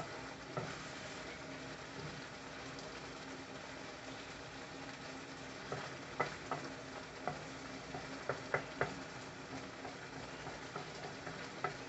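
A thick curry of taro stolons and prawns sizzling in a frying pan while a spatula stirs it, scraping and clicking sharply against the pan several times in the second half.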